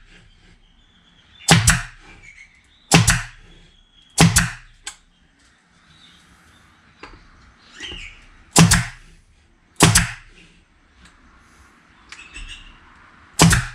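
Nail gun firing six times into a half-inch MDF box, each shot a sharp crack at uneven gaps of one to four seconds, with faint handling noise between.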